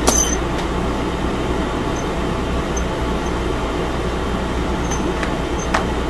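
Steady room hum and noise, like a fan or air conditioner running, with a sharp click at the very start and two faint ticks near the end.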